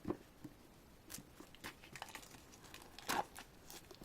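Faint, scattered rustling and crinkling of paper and plastic album contents being handled and moved, with a slightly louder rustle about three seconds in.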